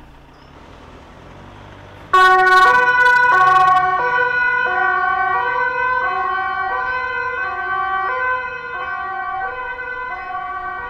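Dutch police car's two-tone siren, starting abruptly about two seconds in and alternating between a high and a low pitch about every two-thirds of a second. It fades gradually as the car drives away.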